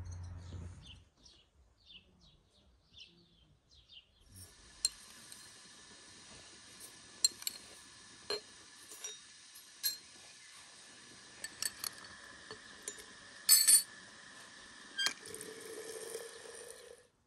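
A metal teaspoon clinks against porcelain as loose black tea is spooned into a china teapot, with one louder cluster of clinks. Near the end, hot water runs from a samovar tap into the teapot in a steady pour. A few short bird chirps come in the first seconds.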